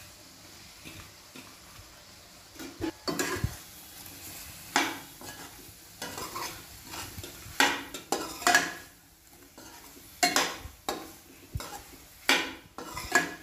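A metal spatula scraping and stirring soya chunks through a thick masala in a metal kadai over a low sizzle. The strokes start about three seconds in and come at an uneven pace, roughly one a second, as the chunks are mixed into the gravy.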